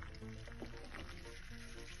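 Soft background music, over faint sizzling of a tempering of mustard seeds, dals, garlic and curry leaves frying in oil.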